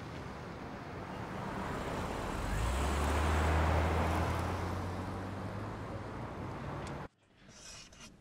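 A car driving past on a street, its engine and tyre noise swelling to a peak about three and a half seconds in and then fading, over steady traffic noise. The sound cuts off suddenly about seven seconds in, leaving faint room tone.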